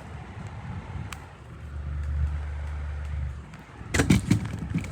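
Comfort Zone 10-inch box fan running on its medium speed: a steady low rush of air, with a deeper rumble swelling for about two seconds midway. A few sharp clicks near the end.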